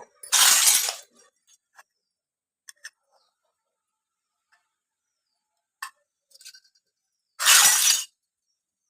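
Small toy kitchen pieces and their packaging being handled: two short, loud clattering bursts, one just after the start and one near the end, with a few small clicks and taps between.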